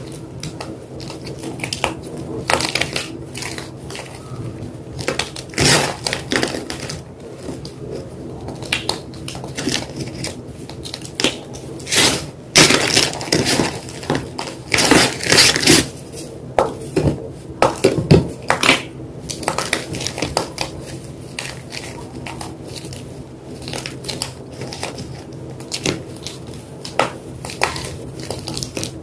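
White gym chalk being crunched and crushed: irregular, crackly crunches that come thickest about halfway through, over a steady low hum.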